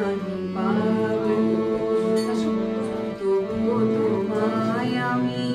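Harmonium playing held reed chords while a woman sings over it with gliding, ornamented phrases, in a Bengali song.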